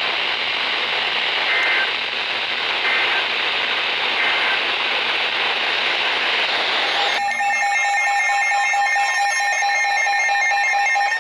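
Steady hiss of radio static with three faint, short two-pitch data chirps about a second and a half apart, typical of Emergency Alert System data bursts. About seven seconds in the static cuts off and a steady electronic alert tone begins, the Emergency Alert System attention signal.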